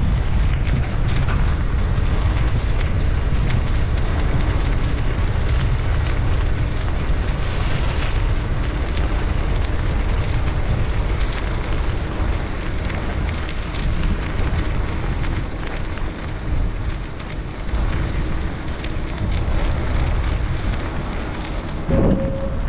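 Wind buffeting the microphone of a camera carried on a moving bicycle, a steady loud low rumble, with street traffic beneath it and a short knock near the end.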